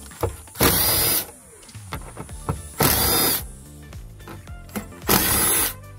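Milwaukee M18 cordless driver spinning a socket in three short bursts of about half a second each, backing out the bolts of a steel floor access cover.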